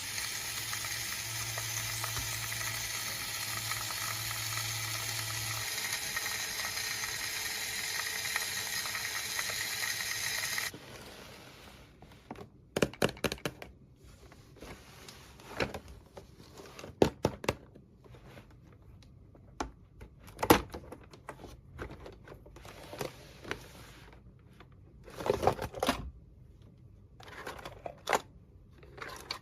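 A steady hiss-like noise for about the first ten seconds, which then cuts off suddenly. After that come scattered clicks, taps and crinkles of small plastic toy pieces and packaging being handled.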